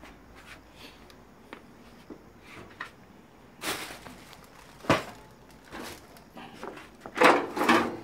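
Rummaging through scrap: plastic bags rustling and objects being moved, with a sharp knock about five seconds in and a louder rustling clatter near the end.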